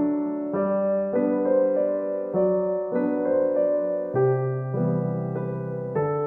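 Background music: gentle piano or electric-piano tune, with notes and chords changing about every half second over a low bass line.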